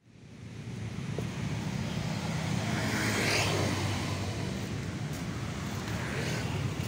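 Street traffic noise: a steady rumble of cars on the road, swelling briefly about three seconds in.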